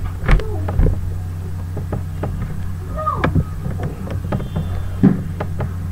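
Steady low electrical hum picked up by the computer's microphone, with scattered short clicks and a couple of brief faint voice-like sounds.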